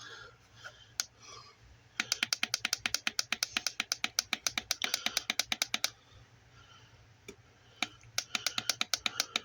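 An Inkbird temperature controller's buttons being pressed to set it for fridge use: a few single clicks, then two runs of rapid, evenly spaced ticks at about ten a second as the set temperature is scrolled.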